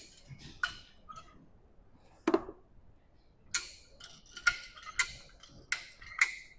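Irregular metallic clicks, a dozen or so with uneven gaps, from a hand chain hoist lowering a heavy tractor rock shaft housing: the ratchet and chain clicking as it is let down a little at a time.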